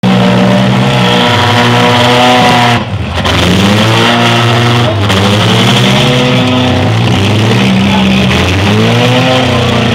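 Several demolition-derby compact cars' engines revving hard at once, their pitches rising and falling over and against each other as they manoeuvre, with a brief drop in loudness about three seconds in.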